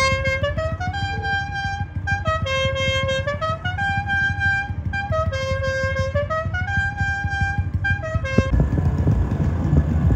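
A vehicle's musical horn plays a short repeating melody of stepped notes that slide down and back up again, about four times over. It cuts off about eight and a half seconds in. Engine rumble from motorbikes and scooters runs underneath.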